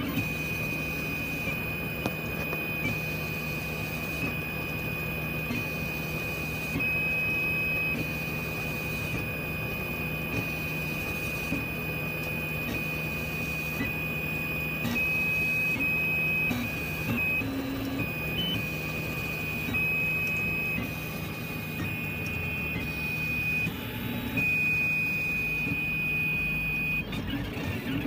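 3D printer's stepper motors running as it prints, with a steady high-pitched whine over a low hum. The whine shifts slightly in pitch every few seconds as the moves change.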